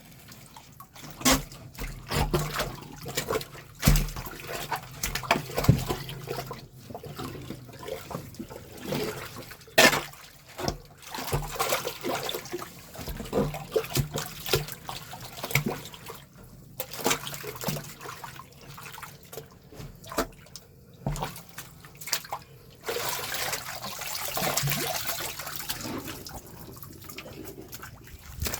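Dirty drain water splashing and sloshing as a blocked drain is worked clear, with scattered knocks and clatters; a longer rush of water for a few seconds near the end.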